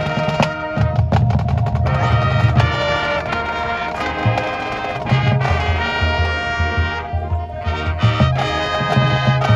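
Marching band playing: brass section over drums, with a pulsing low beat.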